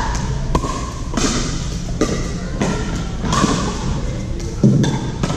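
Pickleball paddles striking a hard plastic pickleball back and forth in a rally: sharp pocks with a short echo, about eight of them at an uneven pace of one every half second to a second, over a steady low rumble.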